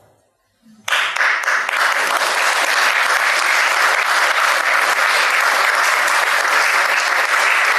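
An audience of a few dozen people applauding. The clapping starts suddenly about a second in, after a brief silence, and keeps up steadily.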